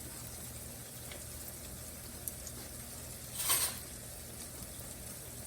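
Diced onion, garlic and jalapeno frying in oil in a wok, a steady faint sizzle, with one short louder burst of noise about three and a half seconds in.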